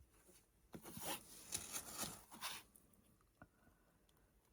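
Faint rustling and scraping of craft supplies being handled on a work table, a few soft strokes over about two seconds, with small clicks around it.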